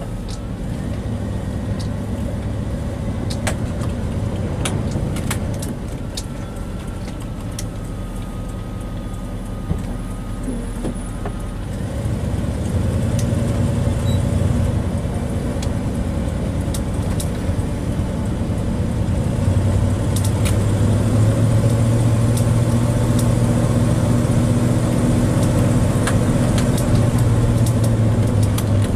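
Inside the cab of a Class A motorhome under way: the engine runs steadily and grows louder about two-thirds of the way through as it picks up speed. Scattered clicks and rattles sound throughout.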